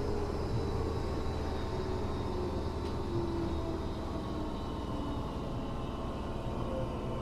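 Tokyo Metro 7000 series armature-chopper electric train running, heard from on board: a steady rumble of wheels on rail with a light whining 'jet sound', the abnormal running noise this car is known for. Its whining tones drift slowly downward in pitch.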